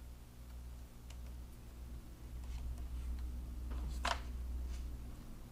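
Small clicks and knocks of a DJI Matrice 300 RTK drone's arms being handled, unfolded and locked, with one sharper click about four seconds in and a softer one just after, over a steady low hum.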